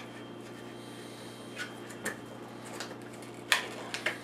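A handful of short, sharp plastic clicks and crackles as a DDR2 laptop RAM module is worked out of its plastic blister pack, the loudest about three and a half seconds in, over a steady low hum.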